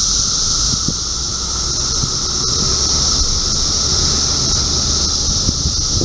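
Chorus of Brood X periodical cicadas in the trees: a loud, steady, high-pitched shrill with a lower droning tone beneath it, unbroken throughout.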